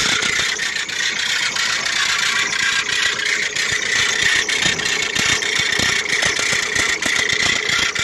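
2009 Ford Mondeo engine idling with a horrible, steady high-pitched squeal from the accessory drive belt. The owner suspects something seized on the belt, such as the alternator, power steering pump, a pulley or the air-conditioning compressor.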